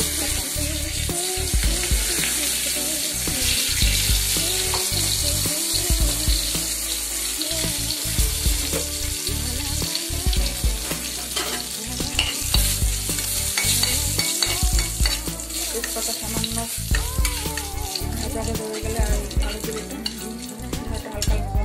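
Hot oil sizzling loudly in a kadai, starting suddenly as nigella seeds are tipped in for tempering, then going on steadily while pieces of fried fish are stirred with a metal spatula.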